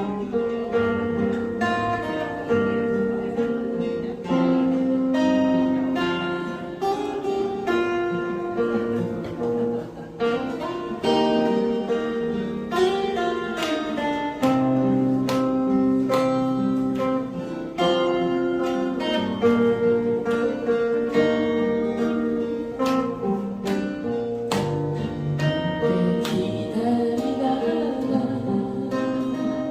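Music: acoustic guitar strummed and plucked, with a held melody line over it.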